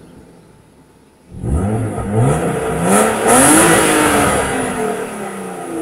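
BMW E36 325i's 2.5-litre straight-six, heard at the twin-tip exhaust, revved while the car is stationary. It idles quietly for about a second and a half, then is revved up sharply, climbing to a peak about halfway through, and falls back slowly toward idle.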